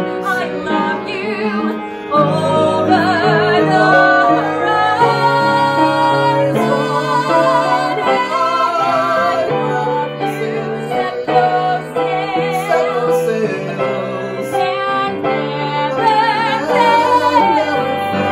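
A woman singing a musical-theatre song with wide vibrato over piano accompaniment, continuing through sustained, held notes.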